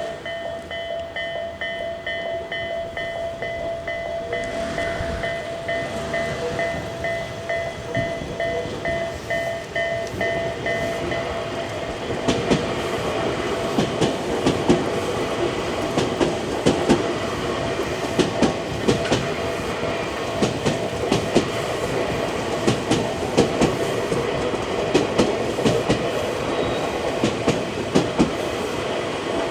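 Japanese level-crossing electronic warning bell (Tobu 'A' tone) ringing in a steady, repeating pulse. About twelve seconds in, a Tobu Tojo Line train passes through the crossing, its wheels clattering rhythmically over the rail joints under the bell.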